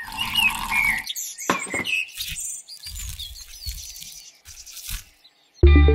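Short bird-like chirps and whistles mixed with brief rustling and clicking sound effects. A music track with a steady beat starts near the end.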